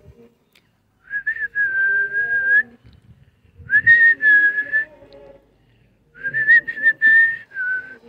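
A person whistling to call birds in to feed: three long, steady whistles, each about a second and a half long, with small wavers in pitch.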